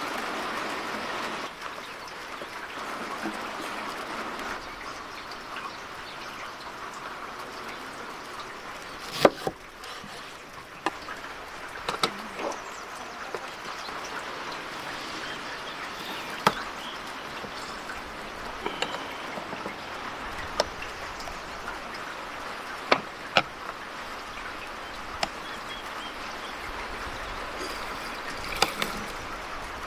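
Sharp clicks and metal clanks, about a dozen spread irregularly and the loudest about nine seconds in, from a metal hand-lever lemon squeezer being loaded and pressed on a wooden board. Under them runs a steady background hiss.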